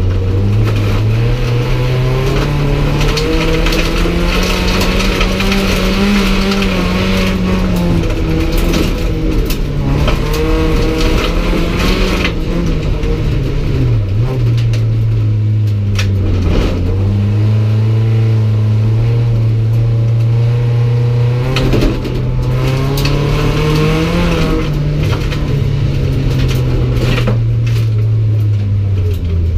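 Race car engine heard from inside the bare, stripped cabin under hard driving, its revs climbing and dropping again and again with the throttle and gear changes, with two quick drops in revs at about 14 and 16 seconds in. Sharp knocks and rattles come through the bare shell.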